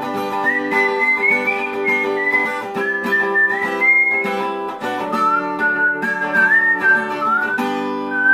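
Background music: a whistled melody wandering up and down with small slides between notes, over strummed acoustic guitar chords.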